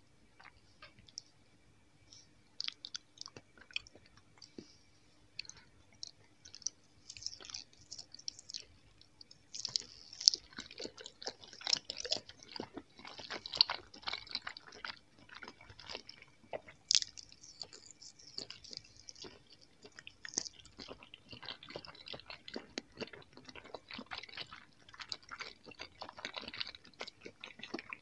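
A person chewing soft gummy jelly candies: many small mouth clicks and crackles, sparse at first and busier from about ten seconds in.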